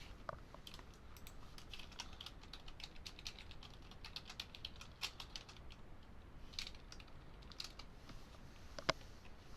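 Typing on a computer keyboard: a run of quick key clicks, with one louder click near the end.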